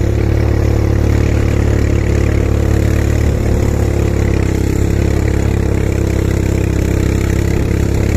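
ATV quad bike engine idling steadily.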